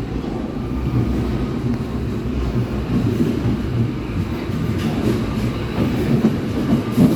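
Berlin U-Bahn class H (H01) train running, heard from inside the car: a steady low rumble with a few wheel clicks over the rail joints in the second half.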